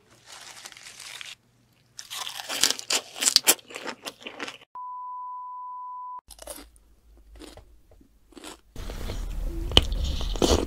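Close-miked crunchy chewing of a lettuce wrap with raw spoon worm, a dense run of crisp crunches. Then a steady test-tone beep at about 1 kHz for about a second and a half, followed by louder wet eating sounds with a low rumble near the end.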